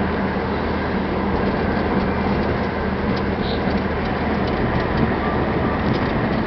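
Car driving along a country road, heard from inside the cabin: a steady drone of engine and tyre noise with a low hum.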